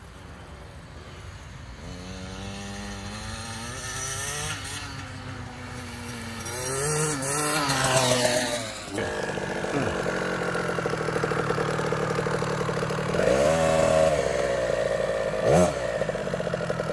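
Small dirt bike's engine revving up and down as it rides over bumps, growing louder as it comes closer, then running more steadily close by in the second half with a quick rev up and down near the end.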